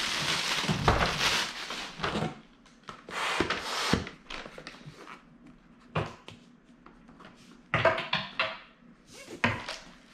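Plastic wrapping crinkling as a manual inflation pump is unwrapped, loudest in the first two seconds with a shorter burst a little later. After that come scattered knocks and clicks as the pump and its ribbed hose are handled.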